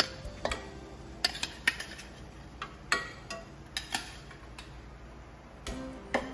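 Utensils clinking against a cooking pot and dishes: a dozen or so irregular sharp taps, some ringing briefly.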